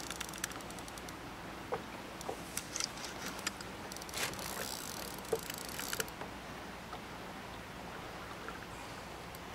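Faint lapping of river water against the boat, with scattered light clicks and knocks through the first six seconds, then only a steady faint wash.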